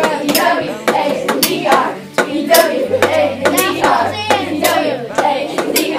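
A group of schoolchildren clapping their hands, about two or three claps a second, with the children's voices singing and calling out over the claps.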